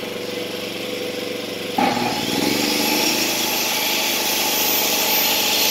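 Predator 8750 inverter generator engine idling, then a table saw is switched on a little under two seconds in. The saw motor starts with a sudden jump in level and spins up to a steady high whine, drawing a starting inrush of about 38 amps from the generator.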